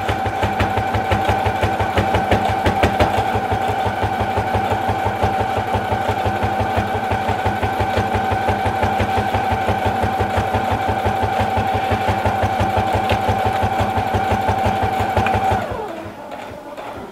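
Electric sewing machine stitching at a steady speed: a rapid, even clatter of the needle over a steady motor whine. It slows and stops near the end.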